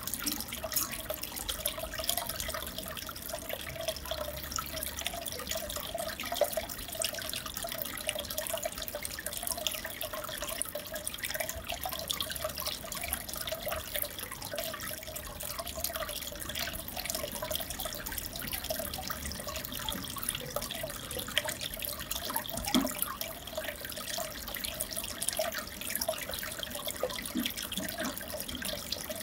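Aquarium water trickling and bubbling steadily, with a dense crackle of tiny pops.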